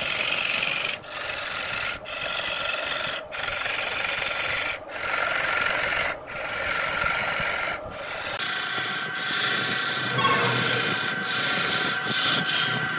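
Lathe turning tool cutting into a spinning wooden blank: a rasping, shearing hiss of wood being peeled away, broken by short gaps about every second and a half as the cut lets up and bites again.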